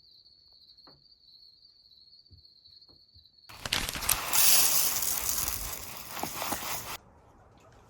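A steady high-pitched cricket-like trill, then about three and a half seconds of loud rushing noise with a few crackles that cuts off abruptly.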